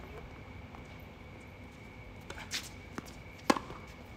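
A tennis ball is struck by a racket in a doubles rally: a couple of fainter hits or bounces, then one loud sharp pop of a flat forehand about three and a half seconds in. A faint steady high tone runs underneath.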